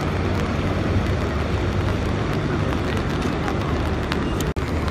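Steady city street noise: a low traffic rumble under a constant hiss, cutting out for an instant near the end.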